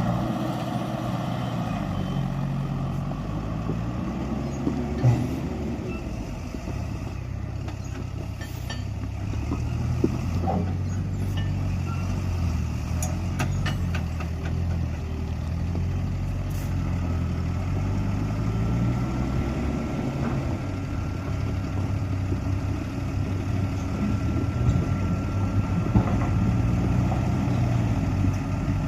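Diesel engine of heavy road-construction machinery running steadily, with a few sharp knocks scattered through.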